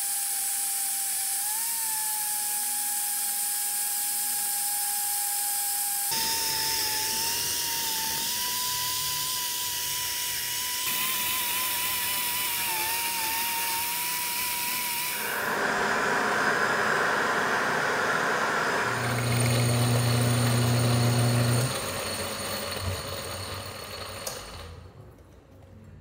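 Power tools running in a string of short cuts: a steady high whine that shifts pitch slightly from cut to cut, then a harsh hiss, then a low hum, dying away near the end.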